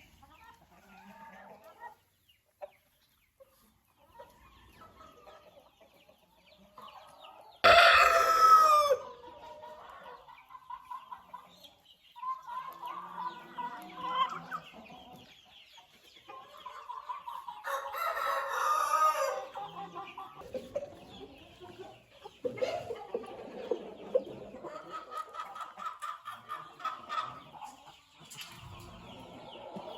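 Chickens clucking, with a loud rooster crow about eight seconds in and another loud call around eighteen seconds.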